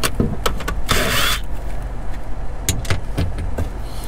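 Cordless DeWalt drill run briefly about a second in, backing a screw out of an air-conditioner cover, with a short rising whine. Clicks and knocks of handling come before and after it over a steady low rumble.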